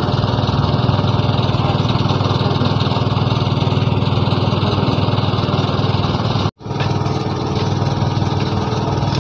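A small engine running steadily, with a momentary break about six and a half seconds in.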